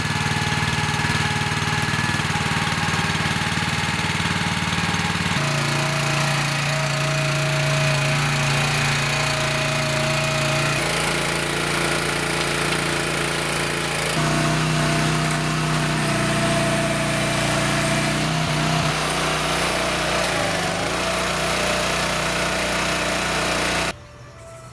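A machine's engine or motor running steadily, its pitch shifting several times, then cutting off suddenly near the end.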